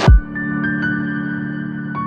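Soft ambient background music with long held notes. A short falling swoosh right at the start, the loudest moment.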